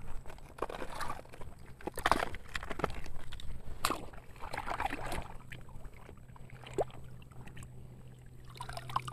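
Hands digging and scraping through sand and handling small plastic toys: scattered scrapes and light clicks, with a low steady hum underneath.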